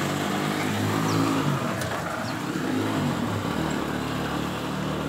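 A motor vehicle's engine running and revving, its pitch rising and falling, over a steady hiss of rain.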